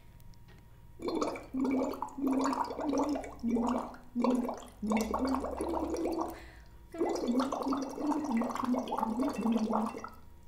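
A woman humming a tune while blowing through a drinking straw into a glass of water, so the melody comes out as bubbling. The notes start about a second in, in two phrases with a short break about two-thirds of the way through.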